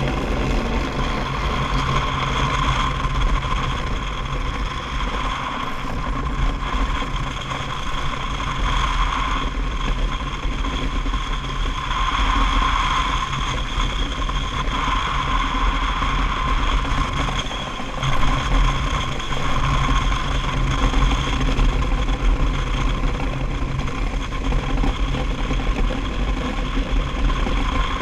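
DN iceboat's steel runners sliding fast over smooth lake ice: a steady low rumble and hiss with a thin, steady whine riding on top.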